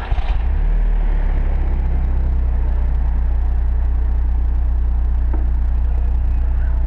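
Audi TT-S's turbocharged 2.0-litre four-cylinder starting up: a brief crank right at the start, the engine catching within about half a second, then idling steadily with a low exhaust rumble.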